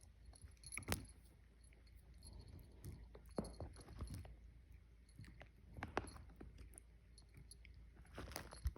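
Faint, irregular light metallic jingling and small clicks, in a few short clusters.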